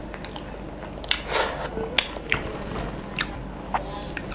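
Close-miked chewing of mutton: wet mouth smacks and several sharp clicks at uneven intervals, with a short rustling swell about a second in.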